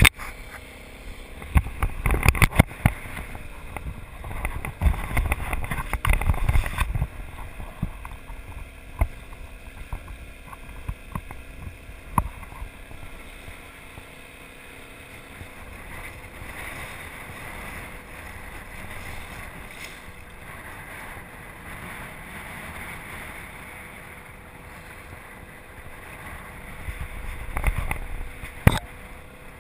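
Wind buffeting the microphone and water splashing against an inflatable dinghy's hull. The noise comes in loud, gusty spells over the first several seconds, then settles into a steady rush, with one sharp knock near the end.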